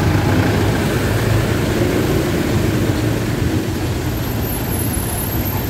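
Street traffic, with a truck's engine running steadily close by and a continuous low hum.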